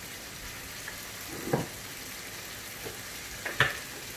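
Rolling pin rolling out paratha dough on a stone worktop, with two short knocks, about a second and a half in and near the end. Underneath runs a steady hiss, the sizzle of chicken cooking in its pan.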